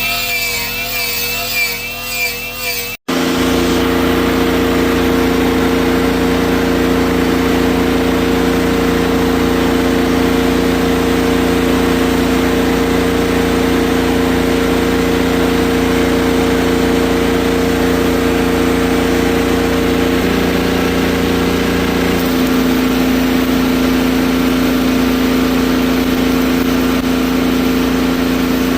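Rebuilt diesel engine of a Mustang skid steer running steadily at a constant speed, its pitch shifting slightly about twenty seconds in. It is preceded for the first three seconds by a different, wavering whine that stops abruptly.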